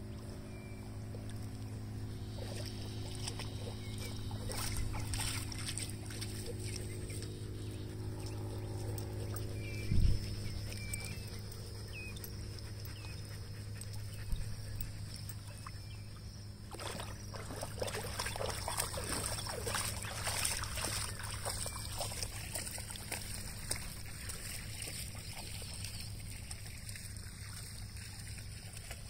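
Huskies splashing about in the water, busiest in the second half, over a steady low hum, with a single thump about ten seconds in.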